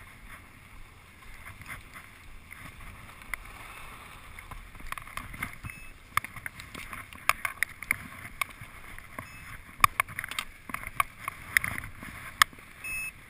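Skis hissing as they slide over packed snow, then from about five seconds in, irregular clicks and knocks of skis, poles and snowboards in a crowded lift line. A few short high beeps sound near the end.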